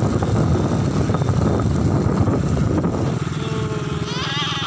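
Motorcycle engine running while riding, with wind buffeting the microphone. About three seconds in, the rumble thins and the engine settles to an even beat. A brief high voice sounds near the end.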